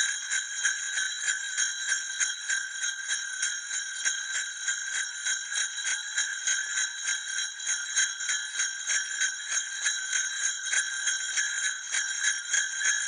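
Sleigh bells shaken in a steady, quick rhythm of about three shakes a second.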